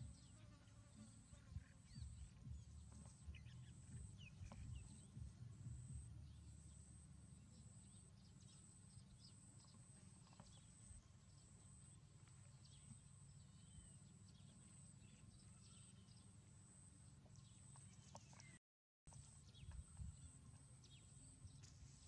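Near silence: a faint low rumble with scattered small clicks and taps, over a faint high-pitched pulsing tone.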